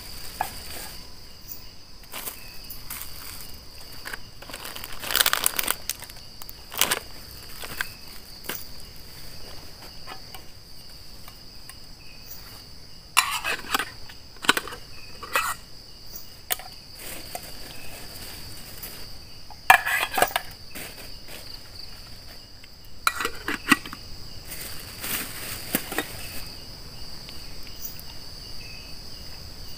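Crickets or other night insects chirring steadily at one high pitch. Bursts of close crackling and rustling come and go several times, the loudest about two-thirds of the way in.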